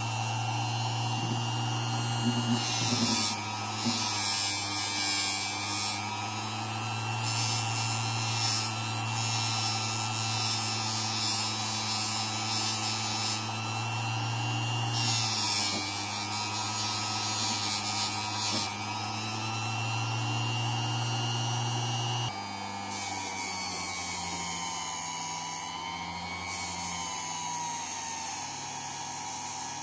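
A small electric motor running with a steady buzz, with several stretches of high hiss over it; the buzz changes pitch about two-thirds of the way through.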